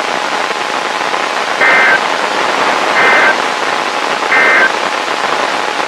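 Three short, high-pitched data bursts of the Emergency Alert System end-of-message code, about a second and a half apart, over steady hiss from a weak, degraded weather-radio signal.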